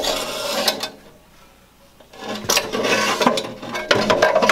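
A metal gas-grill burner tube scraping and clattering against the inside of the grill's firebox as it is worked into place by hand. There is a lull of about a second, then more scraping with sharp knocks.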